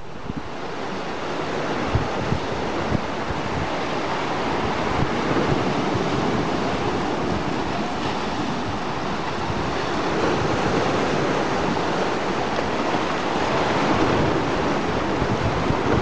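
Pacific surf washing and breaking around shoreline rocks: a steady rush of white water that swells louder around the middle and again near the end. Wind buffets the microphone in low gusts during the first few seconds.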